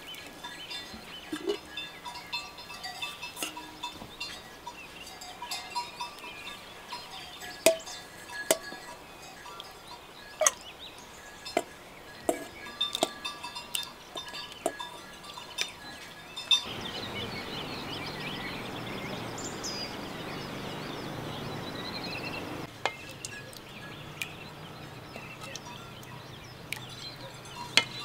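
A ladle clinking and scraping against a metal pot and an enamel bowl as stew is served out: a string of sharp clinks. A steady hiss runs for about six seconds in the middle.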